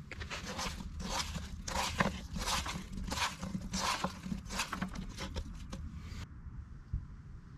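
Hands tossing tofu cubes in potato starch in a skillet: a run of irregular rustling scrapes of tofu and powder against the pan that cuts off suddenly about six seconds in.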